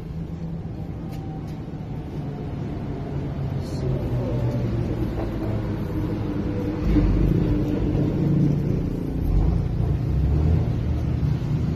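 A low motor rumble with a steady hum, growing louder about seven seconds in.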